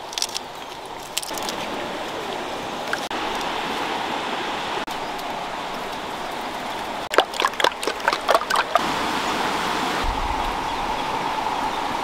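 Eggs cracked on the rim of an iron wok: a few sharp cracks and taps in the first second and a quick cluster of cracks about seven to nine seconds in, over a steady rushing background.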